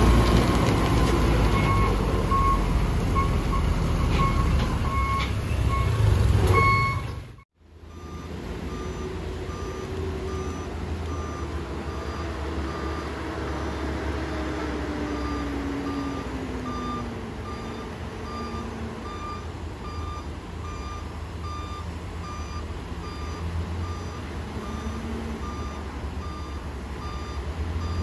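Heavy MAN truck hauling a crane passes close by, its diesel engine loud and low, while a warning beeper sounds. After a cut about seven and a half seconds in, the truck is heard from farther off with its engine note falling slowly, and the beeper keeps beeping about once a second.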